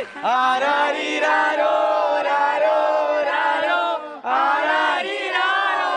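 A group of voices shouting and chanting together in long held calls, with a brief break about four seconds in.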